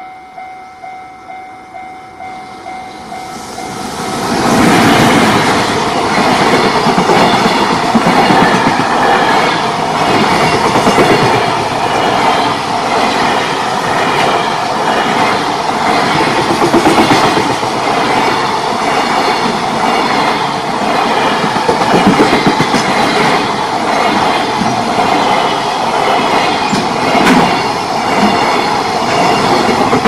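Level-crossing warning bell ringing in steady pulses, then from about four seconds in a JR Freight EF210 electric locomotive and its long freight train of container wagons pass close by, the wheels clattering rhythmically over the rail joints while the bell keeps ringing underneath.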